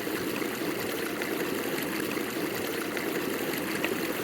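Stream water running over rocks: a steady rushing with small trickling splashes.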